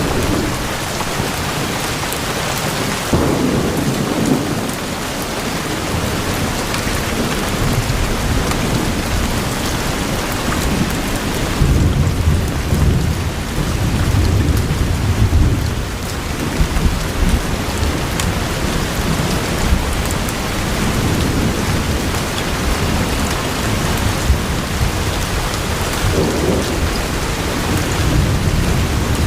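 Steady rain falling, with rolling thunder rumbling in low several times, most strongly a few seconds in, midway, and near the end.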